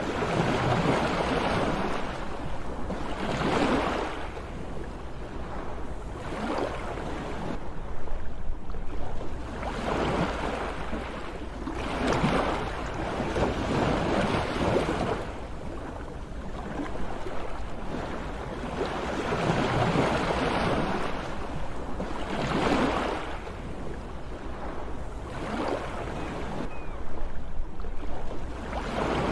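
Sea waves washing onto the shore one after another, each swelling into a rush of surf and fading every few seconds, over a steady low rumble.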